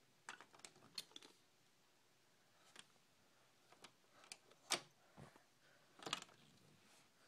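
Irregular light clicks and taps, singly and in short clusters, the loudest two coming about two-thirds of the way through.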